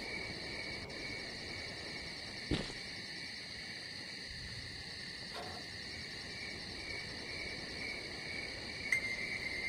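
A steady, high-pitched chirring drone that pulses slightly, with a single sharp click about two and a half seconds in.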